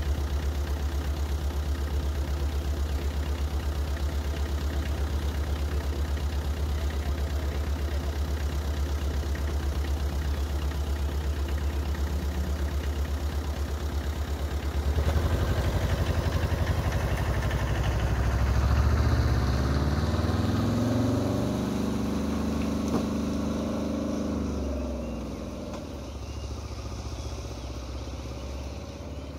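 A vehicle engine idling close by with a steady low throb. About halfway through it revs and the vehicle pulls away, its pitch climbing, holding, then dropping, before the sound fades off.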